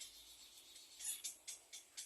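Little egret chicks' begging calls: a faint, irregular series of short, high, raspy calls.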